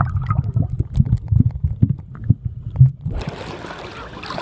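Muffled sound of a camera held underwater in the sea: low rumbling thuds and bubbling with the high end cut off. About three seconds in the camera breaks the surface and the sound opens up into water sloshing around it.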